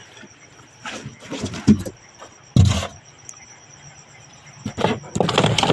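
Irregular knocks and clatter as freshly caught fish and plastic tubs are handled in a fish box. There is one loud thud about two and a half seconds in and a quick run of knocks near the end.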